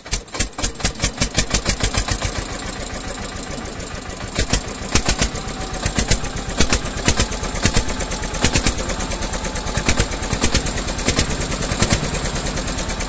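A small engine running with a rapid, even chugging, about four to five beats a second.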